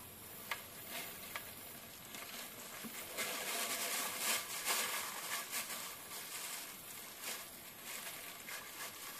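Knife cutting through a slab of homemade nougat resting on plastic wrap: a soft, crackling scrape, loudest for a few seconds in the middle, with a couple of light clicks in the first second and a half.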